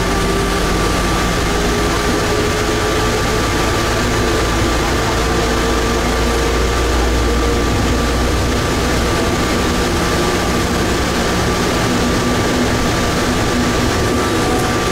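Atlanta airport Plane Train, a rubber-tyred automated people mover, running through its tunnel: a steady rumble and hiss with a constant high tone, and a faint whine that rises slowly in pitch during the first half. The deep rumble eases a little past halfway.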